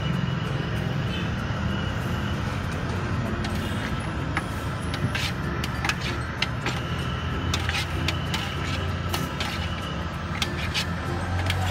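A long-handled ladle scraping and knocking against a large metal pot as thick sate padang sauce is scooped and poured over satay, giving many sharp clicks and taps in the second half. A steady low rumble runs underneath.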